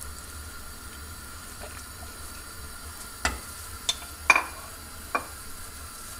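Water bubbling steadily at a gentle boil in a pot on a gas stove, with baby octopus blanching in it. A few sharp clinks come about three to five seconds in as a spoon is set down on a plate.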